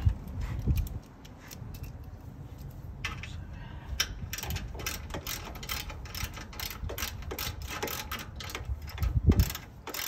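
Socket ratchet wrench clicking in quick strokes, starting about three seconds in, as a mounting bolt of an electric trailer tongue jack is tightened. A low knock comes about a second in and another near the end.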